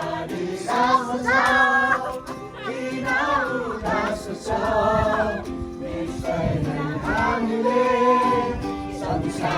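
Several voices singing a joyful Nepali Christian song together, with music; the singing runs on between the sung lines.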